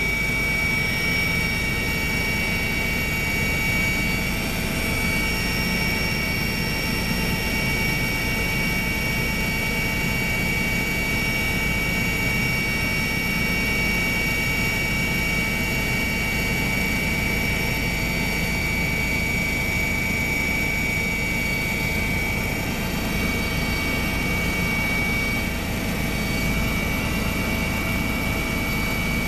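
Helicopter running steadily in flight, heard from on board: a steady high whine over a low rumble.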